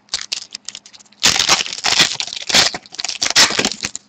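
A trading card pack's wrapper being torn open and crinkled: a few light ticks, then from about a second in some two and a half seconds of dense crinkling.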